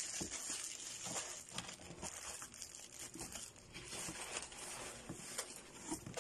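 Faint, irregular crinkling and rustling of plastic-wrapped pasta packets against a cardboard box as groceries are packed into it, with small knocks of packets and tins settling.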